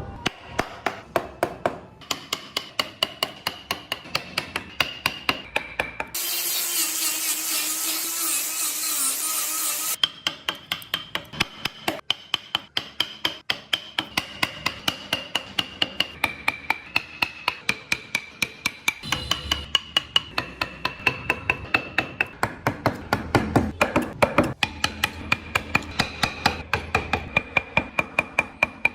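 Hand tools working wood in quick, even strokes, about four a second, with a short run of a power tool about six seconds in.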